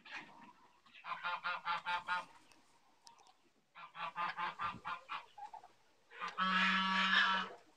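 Domestic poultry calling: two rapid series of harsh, pulsed calls, then one long, louder call near the end.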